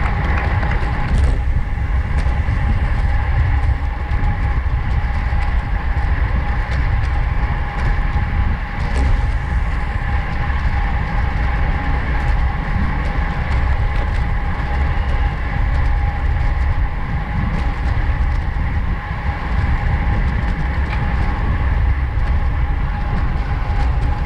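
Wind buffeting a bike-mounted camera's microphone, with road and tyre noise from a road bike at race speed. The noise is loud and steady, with a thin steady whine running through it.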